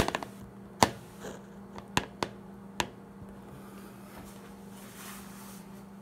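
Handling noise from a phone being propped up and adjusted: a handful of sharp knocks and taps over the first three seconds, then only a steady low hum.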